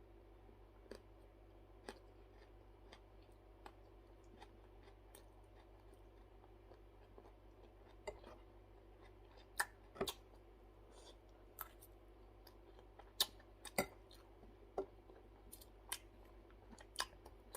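Faint eating sounds from a person eating kinilaw, raw fish in vinegar: chewing with scattered sharp clicks and taps, more frequent and louder in the second half.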